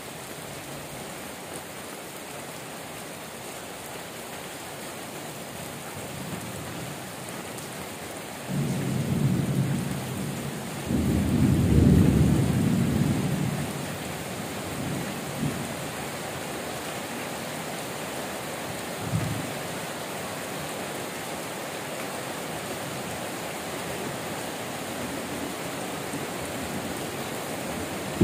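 Heavy rain falling steadily, with a long rolling rumble of thunder that starts about a third of the way in, is loudest near the middle and dies away after a few seconds. A shorter, fainter rumble follows later.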